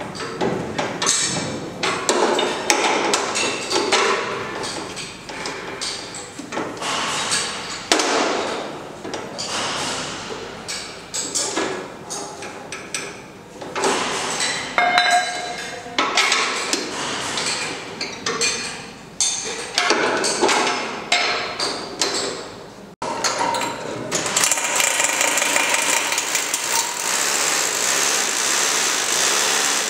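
Irregular knocks, taps and scraping as parts are worked by hand into the metal side guide rail of a PVC high-speed roller door. About three-quarters of the way through this cuts off and a power drill starts running steadily.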